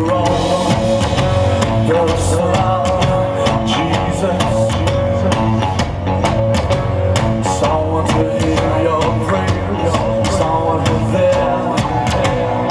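Live rock band playing: a drum kit keeps a steady beat under electric guitar and bass guitar.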